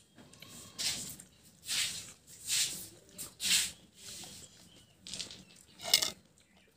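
A person eating juicy watermelon close to the phone's microphone: about six short, wet slurping and chewing sounds, the loudest near the end.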